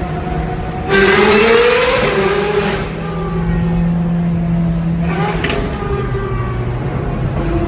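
Ferrari 458's V8 fitted with iPE (Innotech Performance Exhaust) headers and exhaust, revving hard about a second in with a rising pitch for roughly two seconds, then running on steadily, with a second, shorter rev about five seconds in.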